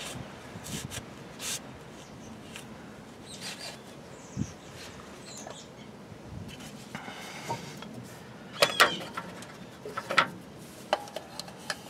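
Shop rag wiping the front axle's actuator mounting face, then a few sharp clicks and knocks as the replacement four-wheel-drive axle actuator is handled against the metal axle housing. Faint bird chirps in the background.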